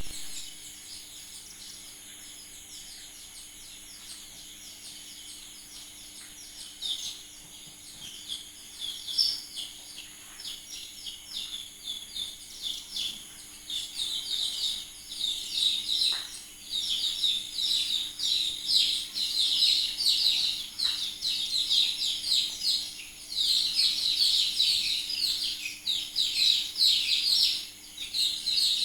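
Many young chicken chicks peeping at once, a dense stream of short high cheeps that grows busier and louder from about seven seconds in. A faint steady hum runs underneath.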